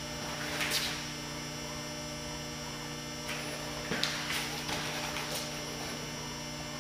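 Steady electrical hum under a light hiss, with a few brief, soft noises about a second in and again around four to five seconds in.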